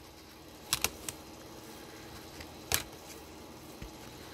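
Plastic 3.5-inch floppy disks clacking against each other and the table as they are handled and shuffled: a pair of sharp clicks just under a second in, a fainter one shortly after, and a louder clack near three seconds.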